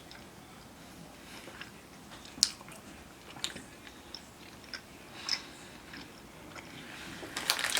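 Person chewing a soft, chewy gummy candy (lemon Skittles Squishy Clouds), with faint wet mouth clicks now and then. A crinkling rustle starts near the end.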